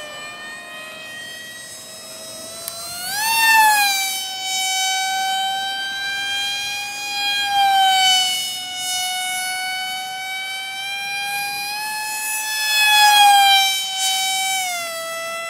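High-pitched whine of an RC model plane's 2205 2300kv brushless motor spinning a 5045 propeller in flight. The pitch rises and it grows louder about three seconds in, swells again mid-way and near the end, then drops in pitch shortly before the end.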